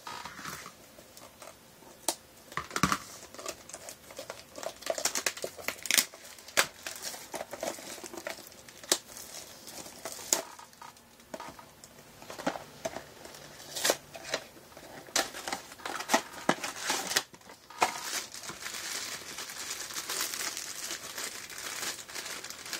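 Cardboard blind box being handled and opened with scattered sharp clicks and taps. From about eighteen seconds in, steady crinkling of the figure's foil wrapper being torn open.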